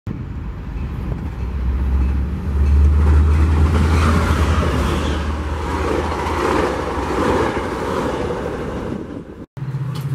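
A passing train: a diesel locomotive's steady low engine drone under a rumble of wheels and rails, loudest a few seconds in. It breaks off suddenly near the end, and a different, higher engine hum follows.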